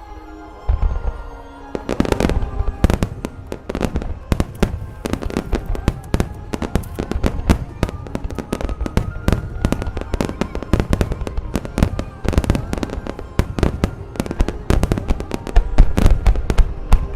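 Rapid barrage of firework shell bursts from a large starmine display: dozens of sharp bangs in quick succession, growing denser after the first couple of seconds and heaviest near the end, with music playing underneath.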